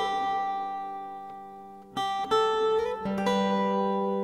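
Background music on acoustic guitar: a chord struck and left to ring out slowly, then new chords about two and three seconds in.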